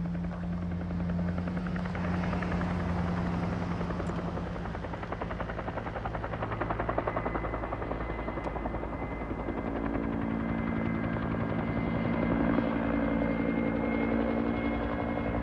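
Helicopter lifting off and flying away, its rotor blades beating in a fast, steady chop over the engine's hum. The hum steps up in pitch about ten seconds in.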